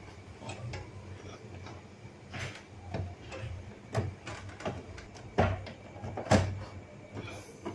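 Irregular plastic clicks and knocks from hands working the carriage belt onto the spring-loaded idler pulley of a Canon G3060 inkjet printer. The two loudest knocks come a little past the middle, about a second apart.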